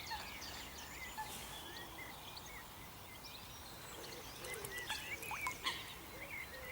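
Small birds chirping and twittering over a steady outdoor hiss, the calls growing busier about four seconds in.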